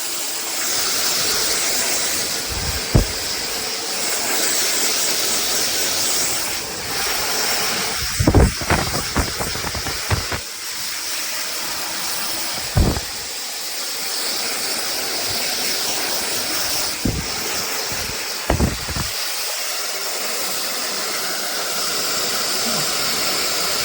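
slopehill ionic hair dryer blowing with a steady airy hiss. A few dull low thumps are heard on top of it.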